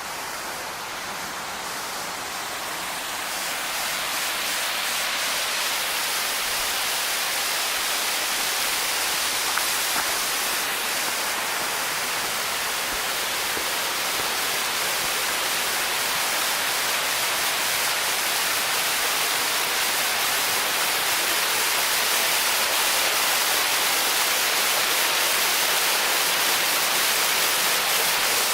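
Steady rush of creek water over a waterfall, an even hiss that gets louder about three seconds in and then keeps building slowly.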